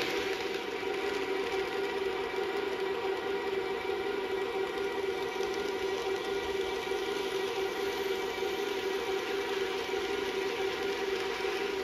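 Model train running on KATO Unitrack: the locomotive's small electric motor and gearing give a steady whine of several held tones, over a light running noise from the wheels on the track.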